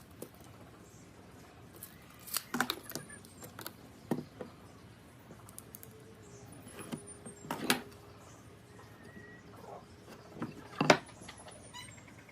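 A few separate sharp knocks and clacks, about two and a half, four, seven and a half and eleven seconds in, the last the loudest, over a quiet background with a faint steady hum in the middle.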